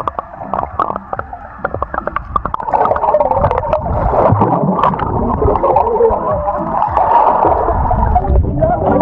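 Pool water heard through a submerged camera microphone: muffled gurgling and bubbling with scattered clicks. It grows louder and denser about three seconds in as the water is churned near the surface.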